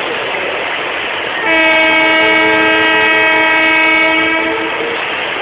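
Passenger train coaches rolling past at close range with a steady rushing rattle, while a locomotive horn sounds one long blast of several notes at once, starting about a second and a half in and lasting about three seconds.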